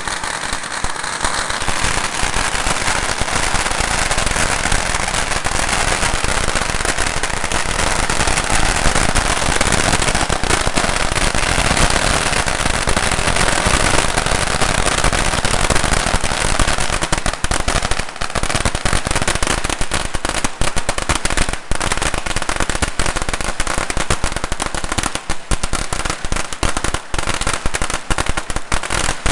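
A long string of firecrackers going off in a continuous, rapid crackle of small bangs, which become more separate in the second half.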